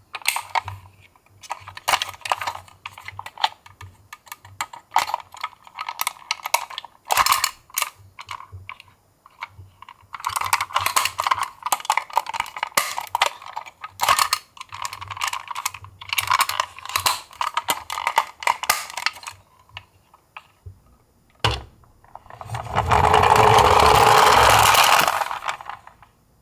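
Die-cast toy minicars clattering and clicking against each other and the plastic track as they are handled and rolled, in irregular bursts. Near the end, a louder steady whirring rumble of a toy car rolling down the slope lasts about three seconds.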